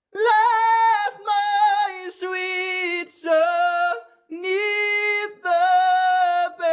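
A man singing unaccompanied in sob register, a darker variant of cry register built on call register with slightly closed vowels and a crying quality. He holds steady sustained notes in several short sung phrases, with brief breaks between them.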